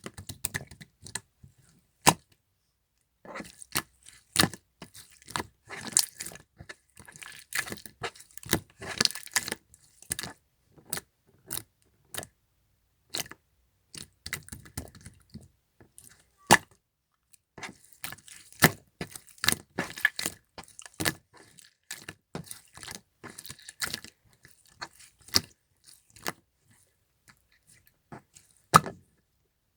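Yellow clear slime being squeezed and worked by hand, giving irregular sharp clicks and pops with short quiet gaps between.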